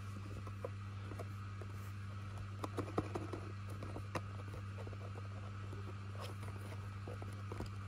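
A small cardboard blind box being handled and turned over in the hands, giving light taps and scrapes, with a cluster of sharper clicks about three seconds in and one more a second later. A steady low hum runs underneath.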